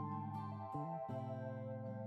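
Background music: soft instrumental with held, plucked notes and a low bass line.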